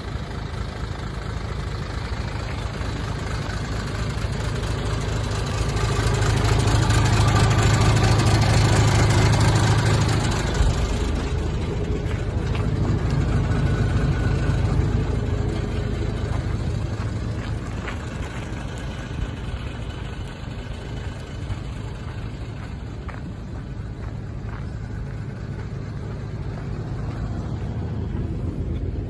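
1994 Hino Ranger truck's H07D inline-six diesel engine idling steadily, louder for a few seconds about a quarter of the way in.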